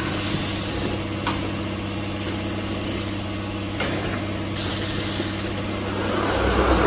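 Automated jug palletizer running: a steady machine hum with a few sharp clicks as the gripper picks up and sets down plastic jugs, and a swell of motor noise near the end as the gantry moves.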